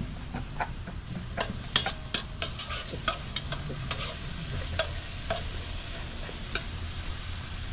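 Onions and garlic sizzling as they fry in a large steel pot, stirred with a metal spoon that clinks and scrapes against the pot many times.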